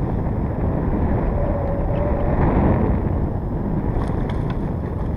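Wind buffeting the microphone on an open boat, a steady low rumble, with a few faint clicks about four seconds in.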